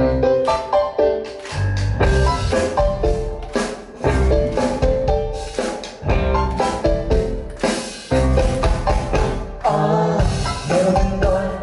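Live pop-rock band playing in a club, drum kit hitting a steady beat under the band.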